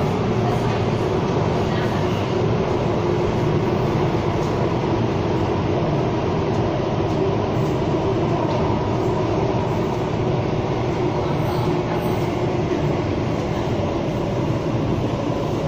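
Singapore MRT subway train running through an underground tunnel, heard from inside the carriage: a steady running noise, even throughout.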